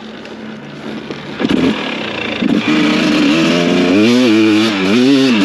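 KTM enduro motorcycle engine running, low at first, then rising and, from about four seconds in, revved up and down in quick repeated blips of the throttle.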